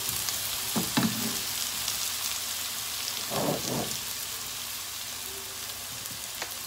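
Chopped onions sizzling in hot oil in a nonstick frying pan, a steady hiss. A silicone spatula stirs and knocks against the pan about a second in and again around three and a half seconds in.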